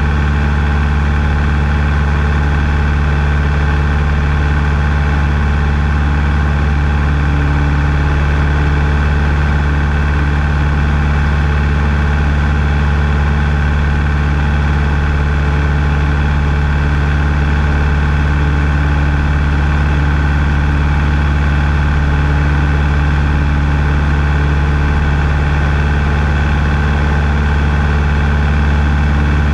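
Taylorcraft BC-12D light aircraft's engine and propeller running at a steady drone in flight, with no change in pitch.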